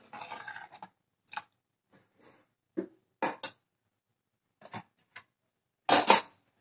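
A metal spoon stirring gravy in a metal pressure cooker, scraping the pot briefly, then a run of light clinks and knocks of kitchen utensils, the loudest pair near the end.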